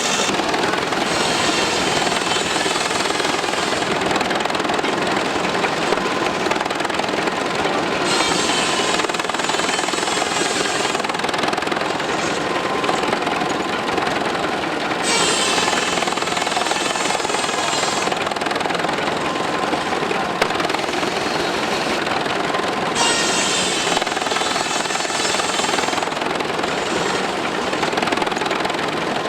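Old belt-driven sawmill machinery running with a steady mechanical clatter. About every seven seconds a higher saw whine rises over it for two to three seconds as the blade cuts through wood.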